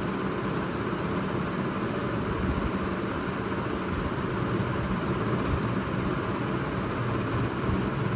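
Steady background hum and hiss, even in level throughout, with a low drone underneath and no distinct events.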